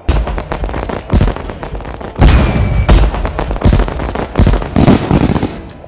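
Fireworks sound effect added in editing: a loud, rapid string of bangs and crackling bursts, the biggest about two seconds in and near the end.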